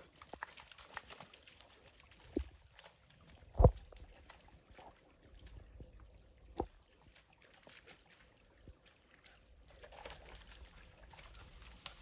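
Small creek trickling over rocks, with scattered snaps and thumps of footsteps through brush and twigs. A sharp thump stands out about three and a half seconds in, and another comes a few seconds later.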